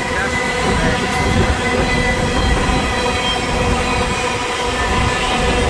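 Freight train of covered grain hopper cars rolling steadily past: a continuous rumble of wheels on rail with thin, steady squealing tones from the wheels held over it.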